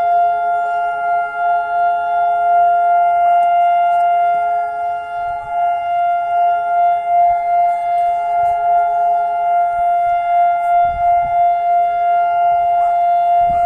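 Civil defense siren sounding the Israeli Memorial Day remembrance signal: one long, steady, unwavering tone with a slight pulsing in loudness. This is the siren that calls for a standing moment of silence for fallen soldiers and victims of terror.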